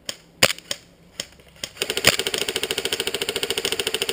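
Airsoft guns firing: a few single shots about half a second apart, then, about two seconds in, a sustained rapid full-auto burst from an electric airsoft rifle (AEG), its gearbox rattling steadily.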